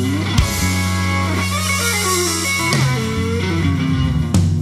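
Background music led by guitar, with notes that slide in pitch over a steady bass line.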